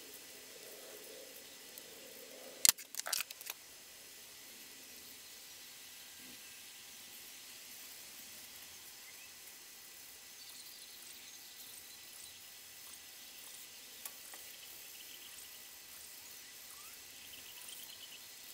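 Faint scratching of a marker pen being rubbed over the flange of a crankshaft oil seal housing, inking the face to show its high spots, against a steady hiss. A sharp knock and a short clatter come near three seconds in.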